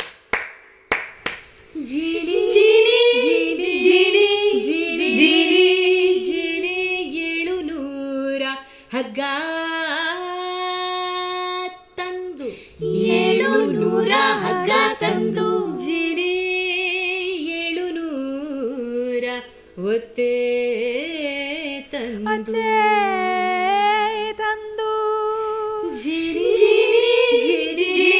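Female voices singing a cappella in several overlapping parts: a multitracked virtual-choir recording. A few sharp clicks come just before the singing begins.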